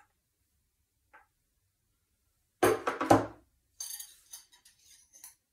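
Tableware clatter: a sudden double knock of something set down on a table, then light clinks and scrapes of a spoon against a dish.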